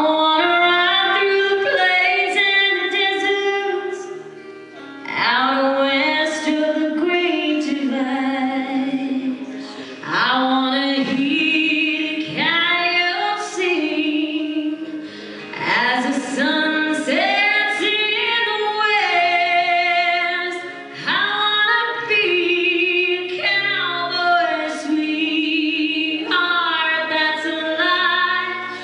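A woman yodeling solo into a microphone, her voice flipping quickly up and down between low and high notes in phrases with short breaks between them.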